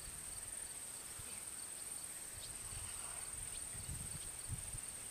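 Quiet outdoor field ambience: a steady high-pitched drone with faint, evenly spaced ticks a couple of times a second, and low rumbles of wind on the microphone, heaviest about four seconds in.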